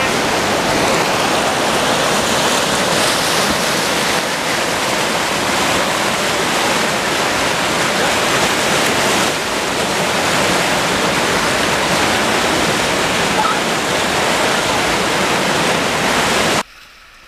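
Steady loud rushing of whitewater rapids, churning water without a break, cutting off suddenly near the end.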